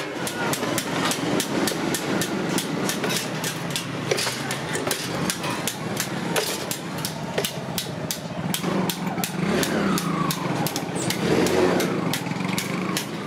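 Hand-lever bench shear cutting a steel sheet into a disc in short bites: a quick run of sharp metallic clicks. A steady engine hum runs underneath.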